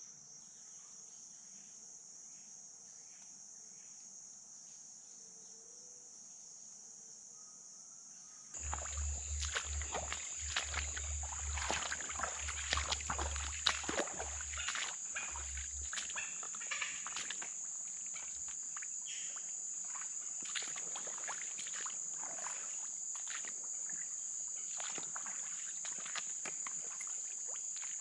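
Insects buzzing in a steady, high-pitched chorus. About eight seconds in the sound gets louder and is joined by many irregular splashes and clicks from movement through shallow floodwater, with low thumps for the next several seconds.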